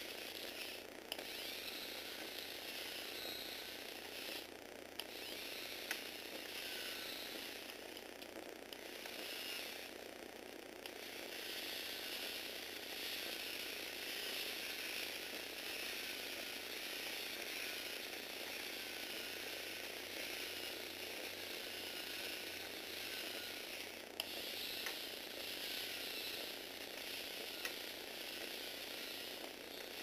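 Two Tamiya Universal gearbox motors whirring as they drive the Lego Technic gears and leg linkages of an eight-legged walking robot, the plastic gearing clattering steadily, with a few sharp clicks.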